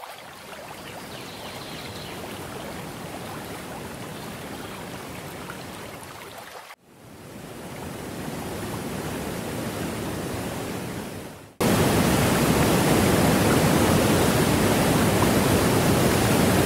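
Steady rushing noise in three stretches that change abruptly about 7 and 11.5 seconds in, the last stretch louder and fuller than the first two.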